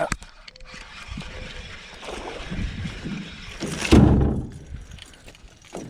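A hooked bass being fought and landed in a small boat: noisy commotion that builds over a couple of seconds, with one loud thump about four seconds in.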